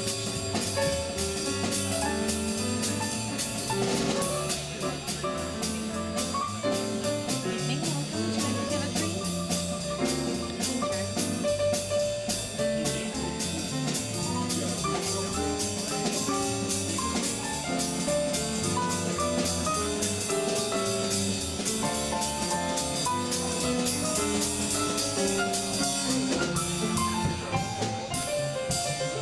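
A live jazz band playing, with a drum kit keeping a steady, quick cymbal beat under a moving melody.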